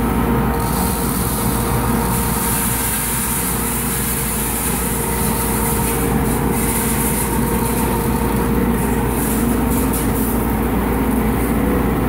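Industrial dust extraction system running at the suction hood of a two-tray sorting machine's bean tray: a steady machine hum with a constant mid-pitched tone under a hiss of rushing air. The hiss comes in about half a second in and fades near the end. The lower trays are drawing with strong suction.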